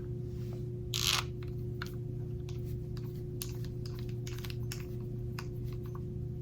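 Key turning in a trigger lock to tighten it: a short scrape about a second in, then a run of small irregular clicks, over a steady low hum.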